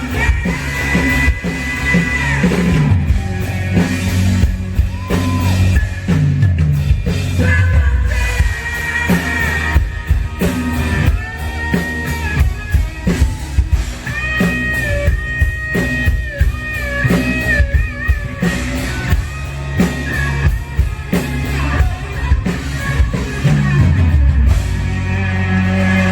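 Live rock band playing, with a driving drum kit and guitars over dense, rapid drum hits.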